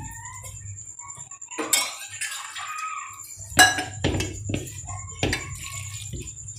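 Hand mixing flour and water into dough in a steel bowl: irregular knocks and clinks against the metal bowl, a few seconds apart.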